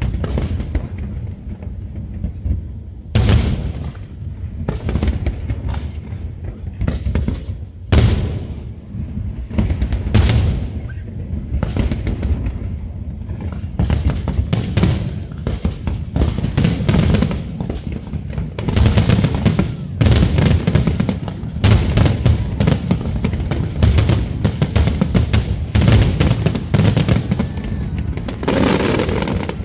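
Fireworks display: aerial shells bursting in sharp bangs over a low rumble of booms. A few big bangs stand apart in the first half, then about halfway through they thicken into a rapid, near-continuous barrage.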